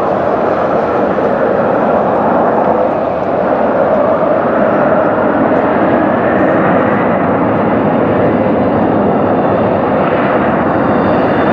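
Embraer 195 jet's twin GE CF34-10E turbofans running at high power for takeoff: a loud, steady rushing noise, with a faint whine rising about six seconds in.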